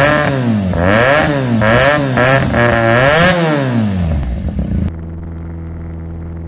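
Motorcycle engine revved several times, its pitch rising and falling in sweeps, cutting off abruptly about five seconds in. A steady, muffled engine drone follows, as from a bike cruising on the road.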